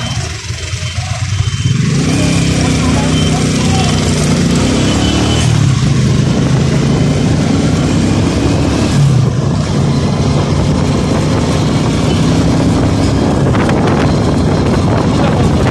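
Motorcycle engine running, its pitch rising and falling several times as the throttle opens and closes.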